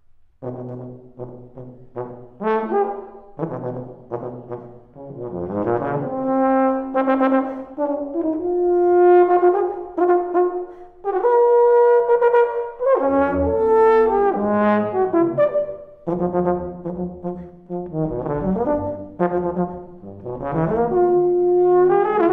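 Euphonium playing solo: a run of short separate notes at first, then longer held notes, some bending in pitch.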